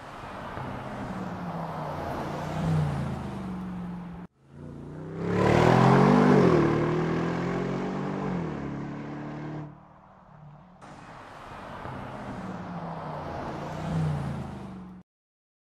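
Bentley Continental V8 S's twin-turbo V8 accelerating hard, the engine note climbing and dropping back at each upshift, in three cut-together passes. The loudest pass, in the middle, rises to a peak and then falls away as the car goes by.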